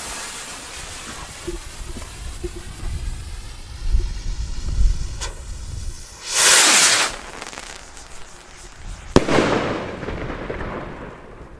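Silver firework rocket: the lit fuse hisses and sputters for about six seconds, the rocket goes off with a loud whoosh as it lifts off, then a single sharp bang about three seconds later as it bursts, followed by a fading hiss of falling sparks.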